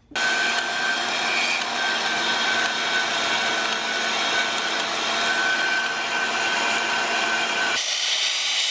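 Electric power tool running steadily with a thin high whine as a steel bolt is shaped into a hinge pin. A little before the end it cuts abruptly to the hiss of a belt grinder sanding the pin and throwing sparks.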